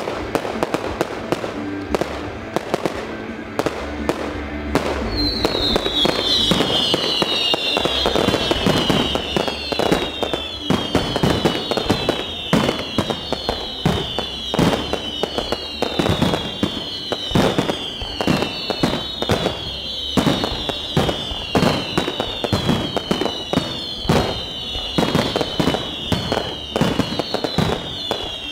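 Fireworks display: a dense run of sharp bangs from aerial shells bursting. From about five seconds in, high whistles join them, one after another, each falling in pitch, about one a second.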